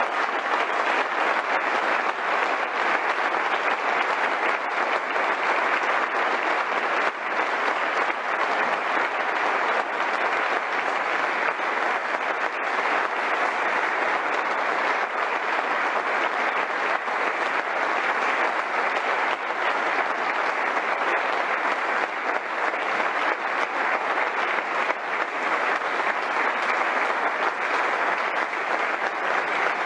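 Many people applauding, a dense, steady clapping that does not let up.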